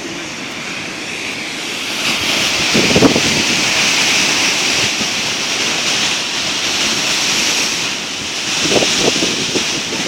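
Heavy ocean surf breaking: a continuous rush of white water that swells about two seconds in, with wind gusting on the microphone.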